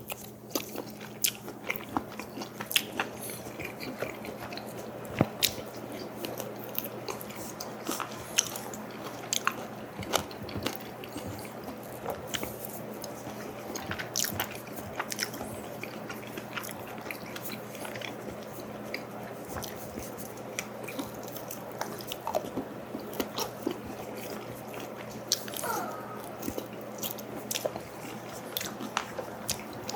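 Close-miked eating: chewing and biting, with many sharp clicks and crunches scattered throughout.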